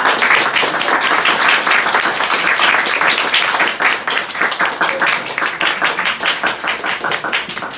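A small group applauding, with many hands clapping densely at once; the clapping thins out near the end.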